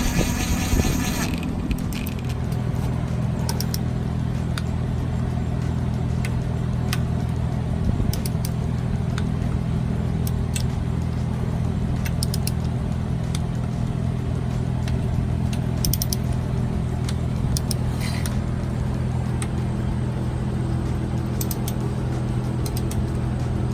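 A steady low mechanical hum with scattered light clicks and taps. A brief hissing noise comes in the first second.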